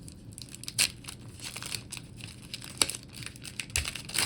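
Foil booster-pack wrapper crinkling while trading cards are handled, with a few sharp crackles and a low thump near the end.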